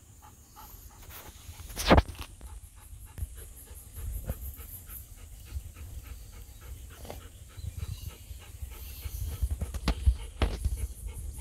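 Golden retriever panting in short, repeated breaths, with a sharp knock about two seconds in and another near the end.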